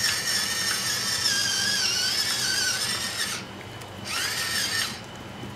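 Battery-powered electric pepper mill grinding mixed peppercorns: a high motor whine with a wavering pitch that runs for about three and a half seconds, stops, then runs again briefly about four seconds in.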